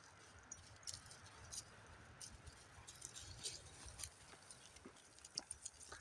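Faint footsteps crackling over dry pine needles and grass: scattered light ticks and crunches, over a low rumble on the microphone.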